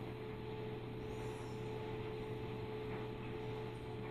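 Steady background hum with a constant faint tone running underneath; no distinct event.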